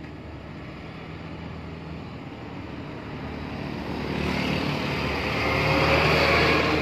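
Heavy cargo truck approaching and passing close by, its engine and tyre noise growing steadily louder to a peak near the end. A steady low engine hum runs underneath.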